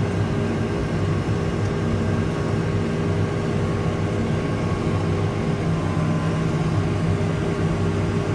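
Case Puma tractor's diesel engine running steadily under load while driving a Krone 3210 CRI disc mower conditioner through the PTO during mowing: an even, unchanging drone with a steady low hum.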